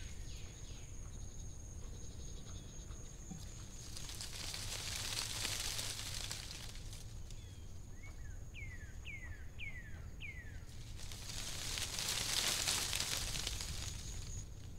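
Outdoor natural ambience: a steady high insect drone throughout, a bird giving a quick run of about five short down-slurred whistles just past the middle, and two long swells of rushing noise, one early and one near the end.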